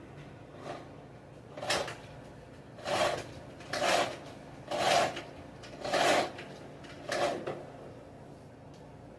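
Seven short scraping sounds about a second apart, the loudest in the middle and fading toward the end; no motor is running.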